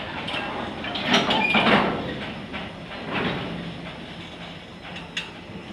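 Oil tank wagons of a freight train rolling slowly over the rails, wheels clanking and rattling, with a louder stretch and a brief high squeal about a second and a half in.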